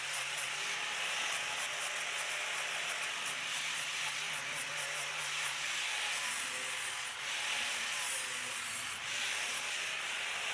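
Electric angle grinder with a sanding disc sanding pine wood, a steady abrasive hiss over the motor's hum, easing off briefly twice in the second half.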